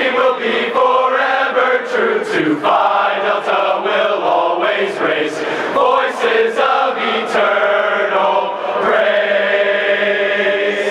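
Large all-male chorus singing together in harmony, settling into one long held final chord for the last couple of seconds.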